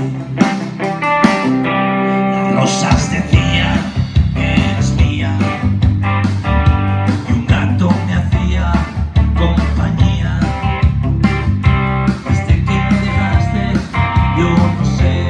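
Live electric guitar music from a Stratocaster-style guitar, playing an instrumental passage between sung verses. A deep bass part comes in about three seconds in and carries on under the guitar.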